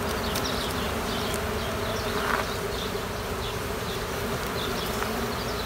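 Honeybees buzzing steadily around an open mating nuc. The colony knows it is queenless.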